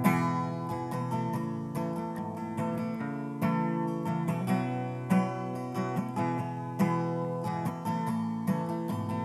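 Solo acoustic guitar strummed in a steady rhythm: the instrumental introduction of a song, before the vocals come in.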